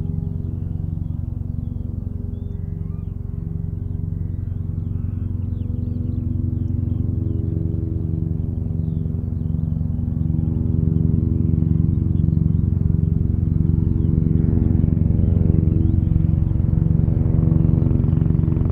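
Helicopters hovering and flying overhead: a steady droning hum with a slow, even throb, growing louder over the second half.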